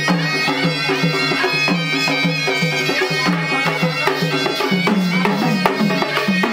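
Traditional folk dance music played live: drums keeping a steady beat under a short melody that repeats over and over above a continuous drone.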